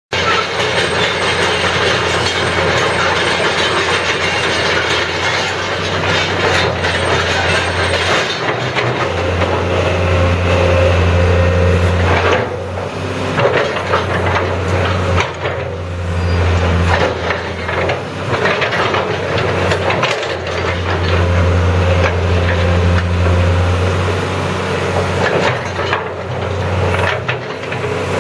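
Mitsubishi MS180LC-3 hydraulic excavator's diesel engine running, its low hum swelling for a few seconds at a time several times as the machine works, with frequent clanks and knocks of metal.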